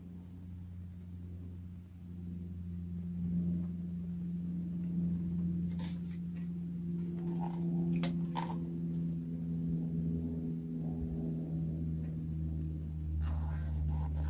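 A steady low hum, with a few light clicks and taps around the middle as a Daisy VL rifle is turned over in the hands.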